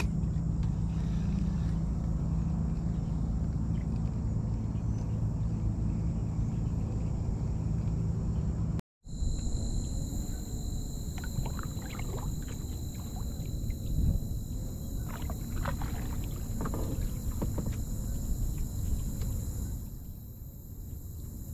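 Water sounds around a fishing kayak: lapping and small splashes with light knocks against the hull, over a steady low rumble in the first half. The sound cuts out for a moment about nine seconds in, and after that the short knocks and splashes come thick and irregular.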